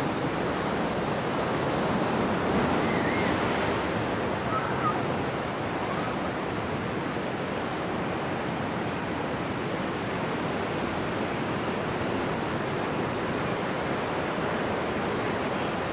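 Ocean surf breaking over a rocky shore: a steady rushing wash, a little louder in the first few seconds.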